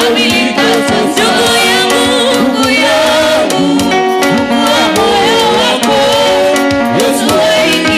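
Gospel worship song: a choir singing with instrumental backing and a steady beat.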